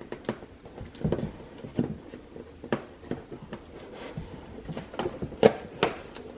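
Cardboard advent calendar compartment being pried open and its contents handled: irregular clicks, taps and rustles, the sharpest about five and a half seconds in.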